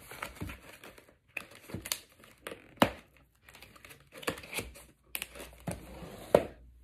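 Packing paper crinkling and rustling as cardboard product boxes are handled and pulled out of a shipping box, with two sharp knocks, about three seconds in and near the end.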